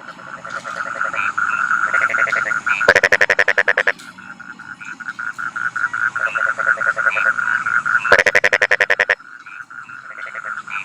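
A chorus of rice-paddy frogs calling in a steady, fast-pulsing trill. A louder nearby frog twice gives a rapid, rattling croak about a second long, a little before 3 s and again near 8 s.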